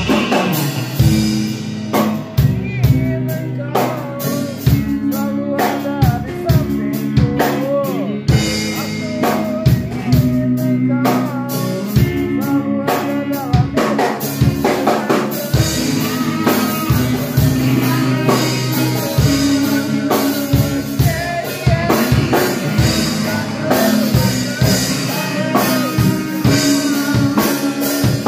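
A rock band playing live. An electric guitar runs through a small Fender combo amp over a Premier drum kit, with steady bass-drum, snare and cymbal hits.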